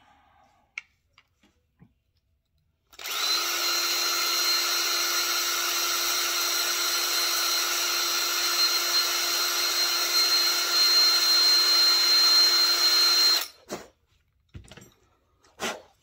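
Bosch 18-volt cordless drill starting about three seconds in, running at a steady speed for about ten seconds, then stopping abruptly. The drill is running low on power.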